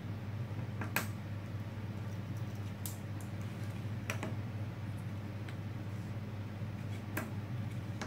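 A few sharp, small metal clicks and taps, the loudest about a second in, as spring bars are worked out of a steel expansion watchband with a spring bar tool and the band pieces are set down on a table. A steady low hum runs underneath.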